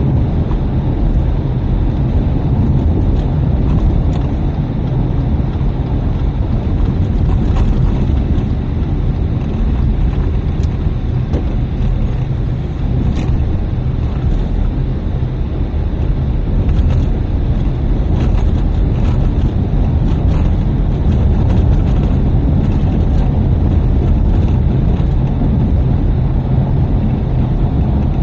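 Car driving along a narrow country road, heard from inside the cabin: a steady low rumble of tyres and engine, with occasional faint ticks.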